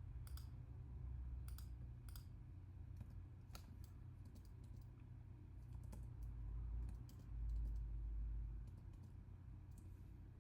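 Scattered sharp clicks of a computer mouse and keyboard, some in quick pairs, with a deep rumble about six to nine seconds in.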